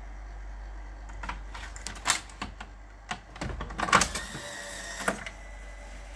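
Clicks and plastic clunks of a VCR-format videocassette being set into the pop-up loading tray of a 1973 Grundig BK 2500 video recorder, then the tray being pressed down and latching shut, with a final click about five seconds in. A steady low hum runs underneath.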